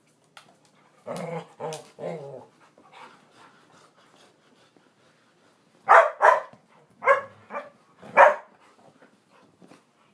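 Dogs barking during rough play: three quieter, lower barks about a second in, then a run of five sharp, much louder barks between about six and eight and a half seconds.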